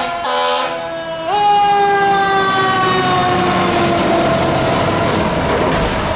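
A fire truck's air horn blast ends in the first second. Then the siren of Ladder 13, a Spartan Gladiator/Smeal ladder truck, jumps up in pitch and slowly winds down, falling in pitch as the truck drives off, over the rumble of its diesel engine and the street traffic.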